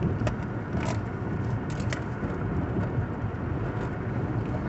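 Steady road and engine rumble heard from inside a moving car's cabin, with a few light clicks in the first couple of seconds.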